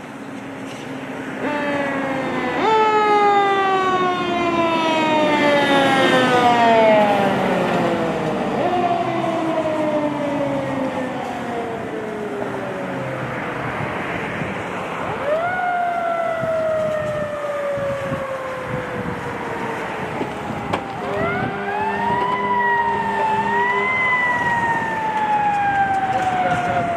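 Fire truck siren sounding on an emergency run: it rises quickly in pitch and then falls slowly over several seconds, about four times, with a wavering rise and fall near the end, over the noise of passing traffic.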